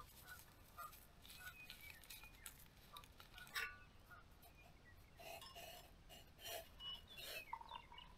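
Faint clinks and taps of a stainless steel camp cup and small camp stove being handled, the sharpest clink about three and a half seconds in, with faint bird calls in the background.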